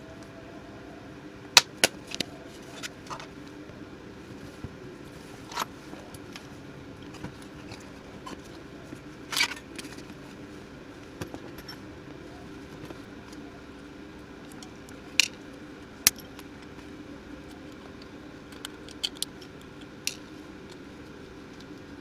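Scattered sharp clicks and small taps of hand tools against the plastic and metal parts of a smartphone being opened for repair, a few seconds apart, over a steady hum.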